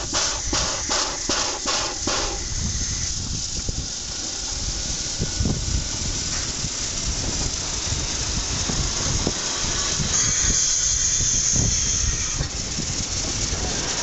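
SY-class steam locomotive drifting slowly past, its cylinders letting out pulses of steam hiss about three times a second for the first two seconds. Then the empty side-dump wagons roll by with a steady rumble and clatter, and a high wheel squeal from about ten seconds in, lasting about two seconds.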